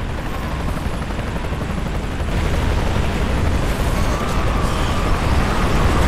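Tornado wind: a steady, deep rushing rumble with hiss that slowly grows louder, with a faint whistling tone in the second half.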